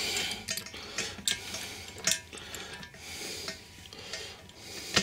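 Metal wing nut and flat washer being handled and threaded by hand onto a brass toilet closet bolt: scattered small metal clicks with light scraping and rubbing.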